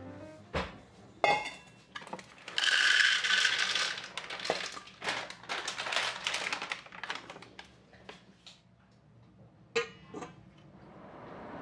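Dried chickpeas poured from a plastic bag into a stainless-steel bowl: a loud rush of rattling against the ringing metal, thinning to scattered clicks of single peas. One sharp clink comes near the end.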